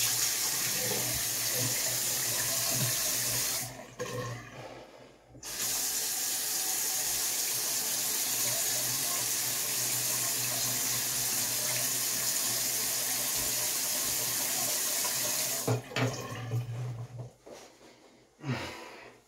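Bathroom sink tap running steadily while a freshly shaved face is rinsed. The flow sound drops away for about a second and a half a few seconds in, then runs again until the tap shuts off about three quarters of the way through, followed by a few short splashing sounds.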